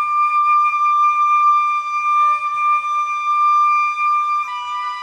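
Background music: a single high melody note held for over four seconds, stepping down to a lower note about four and a half seconds in.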